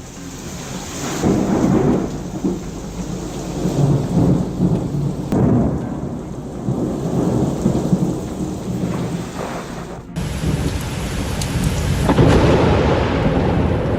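Heavy rain falling through a thunderstorm, with repeated rolling rumbles of thunder rising and fading. The loudest rumble comes near the end.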